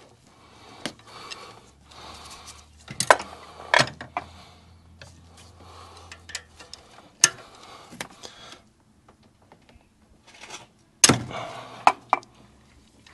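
Metal hand tools clinking and knocking: a breaker bar with extensions and an O2 sensor socket being worked onto an oxygen sensor deep in the engine bay, with rustling between the knocks. There are several sharp clinks, the loudest about three seconds in and about eleven seconds in.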